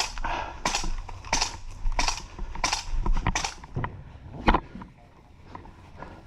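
Footsteps crunching on the ground at a steady walking pace, about one and a half steps a second, stopping after three or four seconds, then a single sharp click.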